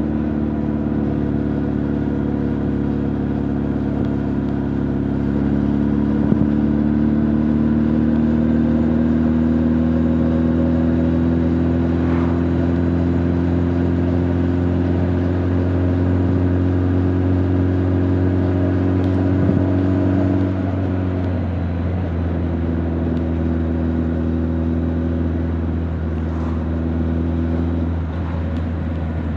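Honda CB1300 Super Bol d'Or's inline-four engine and exhaust under way, pulling with a steady, slowly rising note. About two-thirds of the way through the note drops and settles lower, as with a change of gear or throttle.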